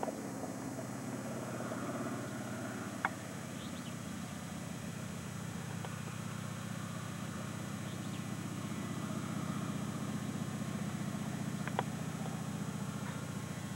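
Floatplane's piston engine running steadily on the water, growing slightly louder as it approaches. Two sharp ticks, about three seconds in and near the end.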